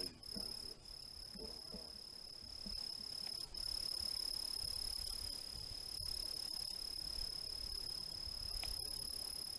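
Night insects trilling in a steady, high-pitched chorus that never lets up, over a low rumble.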